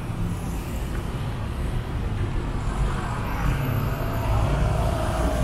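Street traffic: engines running close by with a steady low hum, and the noise of a vehicle swelling from about three seconds in.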